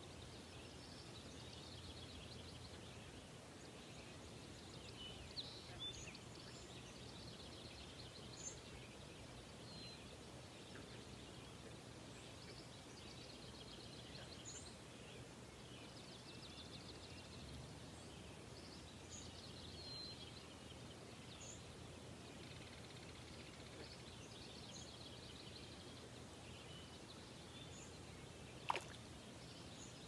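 Faint songbirds calling: trilled songs repeated every few seconds and scattered short high chirps, over a steady low hum. One sharp click near the end is the loudest sound.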